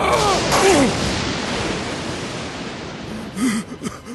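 Cartoon sound effects: several descending whistles and a sudden crash-like burst in the first second, then a loud noisy rumble that fades away. Near the end, quick rhythmic breathing begins, about three breaths a second.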